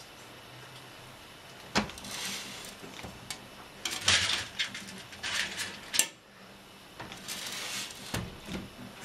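Metal feeding tongs clinking and scraping against a glass vivarium: a sharp click about two seconds in, a few seconds of scraping and rattling that end in another sharp click, then more scraping near the end.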